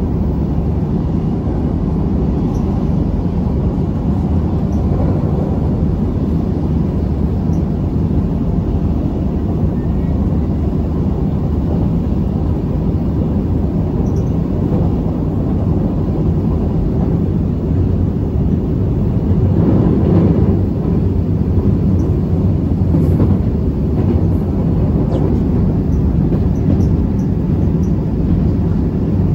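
Running noise inside a KTM Class 83 electric multiple unit under way: a steady, heavy low rumble from the wheels and running gear, swelling briefly louder about twenty seconds in.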